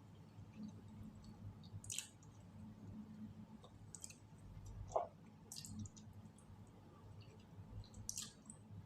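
Quiet room with a steady low hum and a few faint, scattered clicks and soft crackles, the sharpest a single click about five seconds in.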